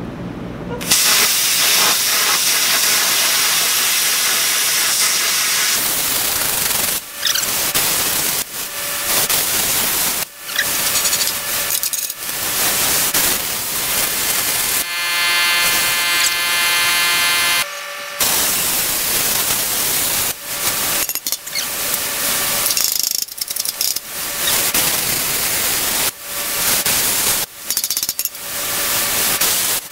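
MIG welder running a hot spray-transfer arc on thick steel plate: a steady, loud hiss that starts about a second in and breaks off briefly several times as the gun trigger is let off and pulled again.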